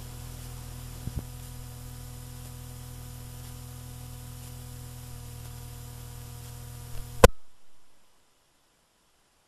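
Steady electrical hum and hiss from the recording equipment, with two faint clicks about a second in. About seven seconds in, a loud click cuts it off and the sound drops to dead silence.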